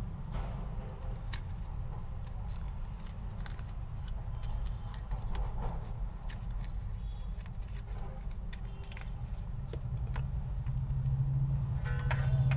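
Small sharp clicks and snips of thin earphone wires being trimmed and handled, scattered irregularly over a steady low hum.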